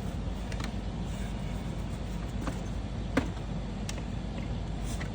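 A few light clicks and taps of plastic parts being handled while an engine air filter housing is refitted, with one sharper click about three seconds in, over a steady low background hum.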